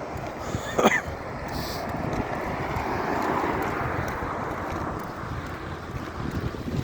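Road traffic with wind buffeting the microphone; a vehicle passes, swelling and fading about two to four seconds in. A short, sharp rising squeal sounds about a second in.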